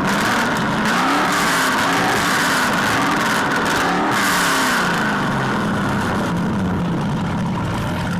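Car engine revving, its pitch rising and falling several times over a steady background of noise.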